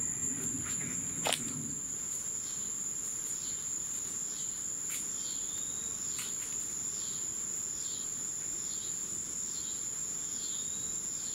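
Night insects singing: a steady high-pitched trill with shorter chirps repeating just under twice a second over it. A single sharp click about a second in.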